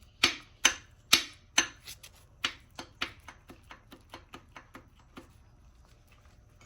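A run of sharp metallic clicks from a part of the torn-down Ford 5.4 3V engine being worked by hand. The clicks come about two or three a second, grow quicker and fainter, and die out about five seconds in. The part has loose play that the owner takes for the source of the engine's knock.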